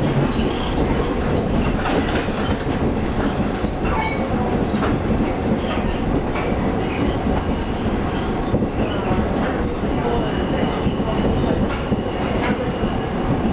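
Taiwan Railway local commuter train heard from inside the carriage: a steady rumble of the train running on the track, with the wheels clicking at irregular intervals over rail joints.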